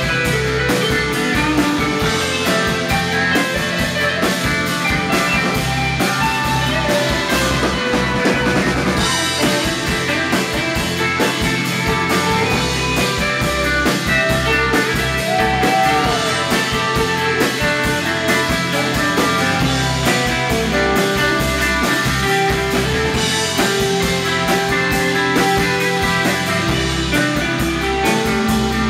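Live rock band playing an instrumental passage without vocals: electric guitars over bass and a drum kit keeping a steady beat.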